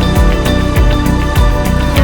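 Background music with a steady beat: bass notes and drum hits over sustained tones.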